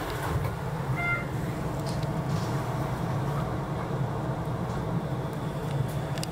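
Shonan Monorail 5000-series suspended monorail car pulling away from the station, heard from inside as a steady low running rumble, with a short beep about a second in.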